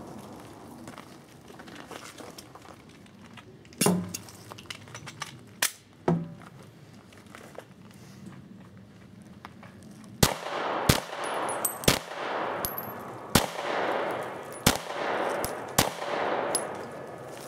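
Gunshots from a shooter working through a course of fire: a few spaced shots, a pause of several seconds, then a faster string of about six shots, each with a ringing echo. Steel targets clang when struck.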